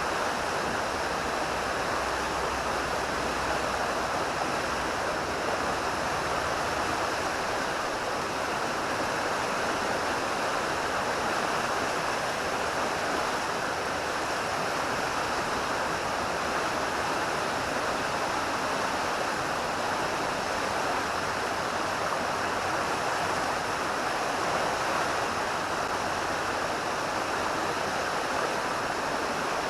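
Steady rushing of river water flowing fast at high water, an even, unchanging wash of noise.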